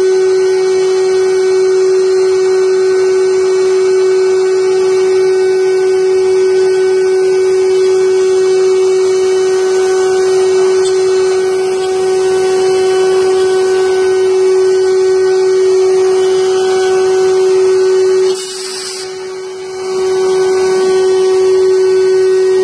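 Spindle of a 5-axis CNC wood carving machine running with a steady high whine as its bit carves a wooden furniture leg. The sound drops briefly, with a short hiss, about three-quarters of the way through.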